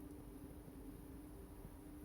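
Near silence: a faint steady low hum over soft background noise, with no distinct crackles or knocks.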